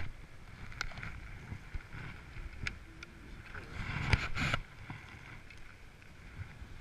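Skier's gear moving on snow: scraping and crunching with a few sharp clicks. About four seconds in, a louder rustle as a jacket sleeve brushes the camera.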